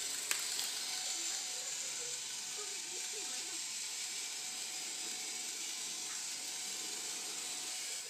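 Small robot's two electric gear motors whirring steadily as it drives on a tiled floor, with one sharp click about a third of a second in.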